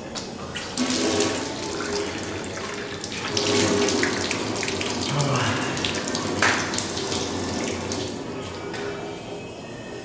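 Water running from a brass wall tap and splashing as someone washes under it, growing louder about a second in and again in the middle as the flow is broken up by hands and face.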